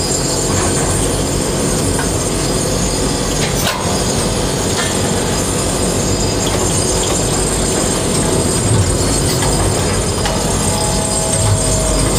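Tower crane machinery running steadily, heard inside the operator's cab while the crane is worked from the joystick: a continuous rumble with faint steady high-pitched tones over it.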